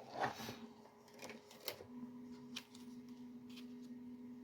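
Faint paper handling: soft rustles and light clicks of magazine pages being handled and turned, with a louder rustle at the start. A faint steady hum comes in about halfway through.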